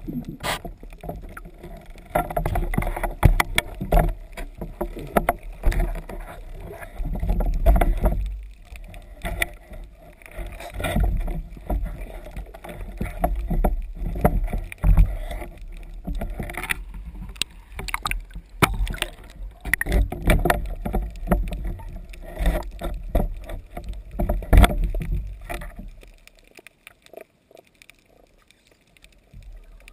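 Water sloshing and rushing against a waterproof camera housing on a speargun as it moves through the water, swelling and fading every few seconds, with scattered sharp clicks and knocks. It dies down near the end.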